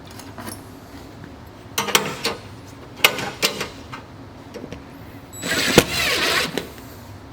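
Work noises from installing a stainless steel flat lock wall panel: three bouts of clattering and rattling with sharp clicks, the last and longest the loudest, about two-thirds of the way through.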